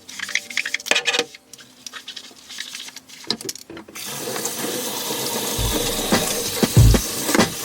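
Small clicks and knocks of items being handled, then from about four seconds in a kitchen tap running steadily, with deep bass thumps of background music coming in near the end.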